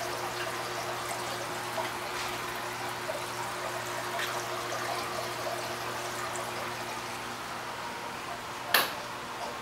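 Aquarium water circulating: a steady trickle and splash of water running through the tank's filtration, over a low steady hum. A single sharp knock near the end.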